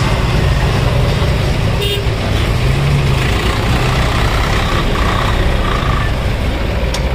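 Diesel vehicle engine running steadily, with a low, even pitch and no revving. A brief high-pitched sound cuts in about two seconds in.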